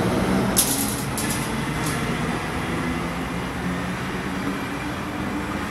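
Double-deck Sydney Trains electric train running past along the platform: a steady rumble of wheels on rail with a low motor hum. Three short high hissing bursts sound in the first two seconds.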